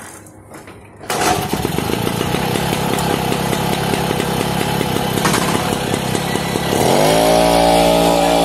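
Motobécane 881U moped's small two-stroke reed-valve engine starts running suddenly about a second in and runs with a fast, even putter. Near the end it revs up and holds at higher revs.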